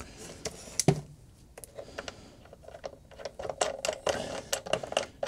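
Small clicks and ticks of coil-retention thumb screws being screwed by hand into the head of a mini induction heater, with one sharp knock about a second in and a quick run of ticking from about three seconds on.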